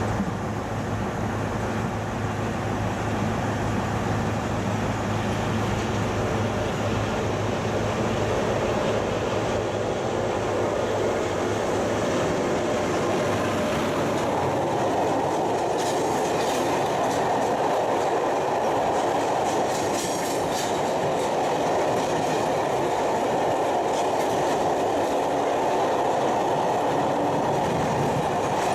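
Freight train hauled by an Sr1 electric locomotive rolling past, the wagons' wheels clicking over the rail joints. A steady low hum in the first half gives way about halfway through to louder rolling noise with clusters of clicks.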